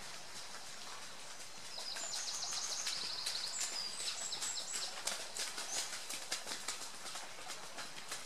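Running footsteps of trail runners passing, a quick irregular patter of light strikes that grows busier in the second half. A small bird sings a rapid series of high chirps from about two to five seconds in.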